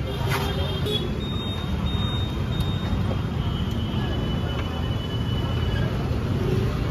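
Steady street traffic noise: a continuous low rumble of passing engines, with a click just after the start and a faint high-pitched tone held for a few seconds in the middle.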